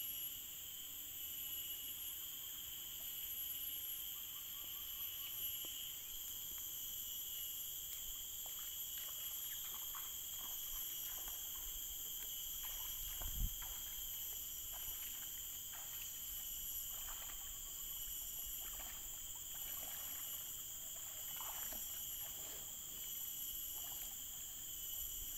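Steady chorus of insects from the forest, several high even tones held without a break, with faint scattered short sounds and a single dull bump about thirteen seconds in.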